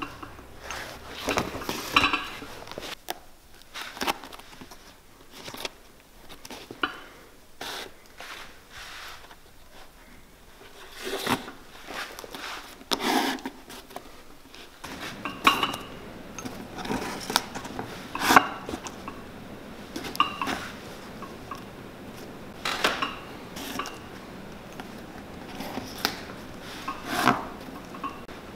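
A thin metal pick scraping and prying at the worn sole and welt of a leather cowboy boot as old stitching and material are picked out: irregular scrapes, clicks and small metallic taps.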